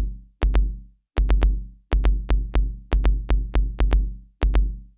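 Electronic music with a drum-machine beat: sharp hits over deep bass notes that fade out, in short repeating phrases broken by brief silences.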